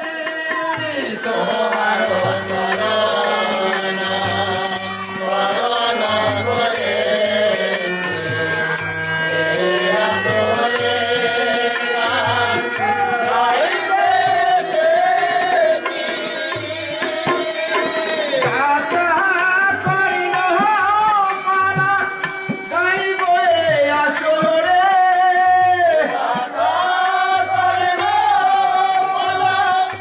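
Live Bengali folk song: male voices singing over a hand-pumped harmonium's held chords, with a steady drumbeat and a rattling hand percussion keeping time.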